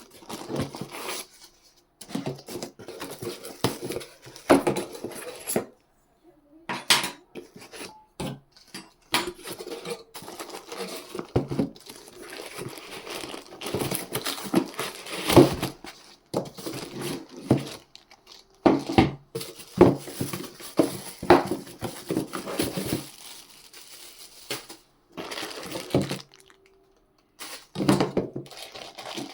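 Handling noises from unboxing a touchscreen car head unit: packaging crinkling and rustling, with irregular clicks and clatter of small hard parts, broken by a few short pauses.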